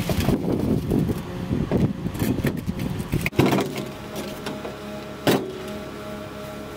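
Wet concrete sliding and pouring out of a tipped wheelbarrow with a rough, rumbling rush, which stops abruptly about three seconds in with a knock. A steady machine hum follows, with one more knock about five seconds in.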